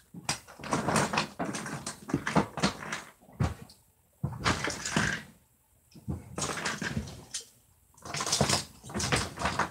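Rummaging through a collection of small plastic toys: irregular rattling and clattering in four bursts with short pauses between them.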